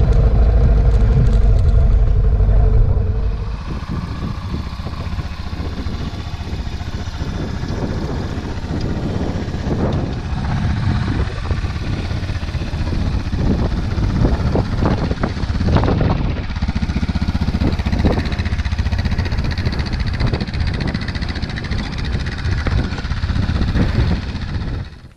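Suzuki DR650 motorcycle riding on a dirt track, engine and wind noise loud for about three seconds, then dropping to a rougher, gusty rumble with irregular knocks.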